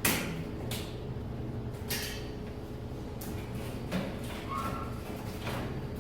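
A series of short knocks and scraping clatters of hard objects being handled, about six in all, the loudest right at the start, over a steady low hum.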